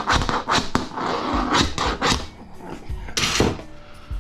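A series of irregular sharp knocks and clanks, about a dozen, from the aluminum shower door frame being worked apart for scrap.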